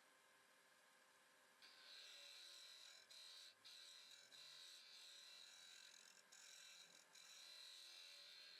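Faint, high-pitched buzz of a small power tool working, starting about a second and a half in and broken by a few short gaps.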